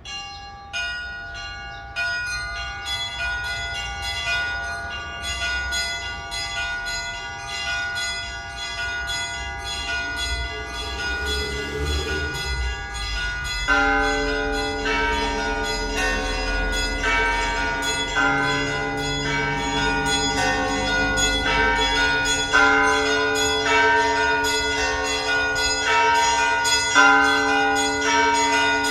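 Church bells ringing: several small bells struck in quick, overlapping strokes, with deeper bells joining about halfway through and the peal growing louder.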